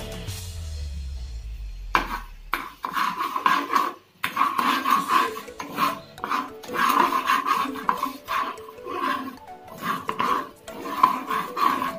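A spatula scraping and stirring in a nonstick pan of bubbling sugar syrup as it cooks down into caramel, in repeated strokes, over background music.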